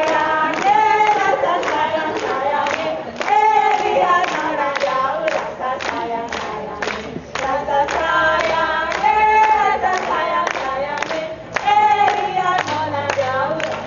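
A group of voices singing a repeated folk phrase together, over a steady clacking beat of about three strokes a second from bamboo poles struck together to accompany a bamboo-pole dance.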